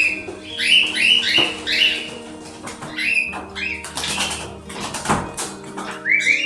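Pet birds chirping in quick, rising calls during the first two seconds, then a flurry of wing flaps in the middle, over background music.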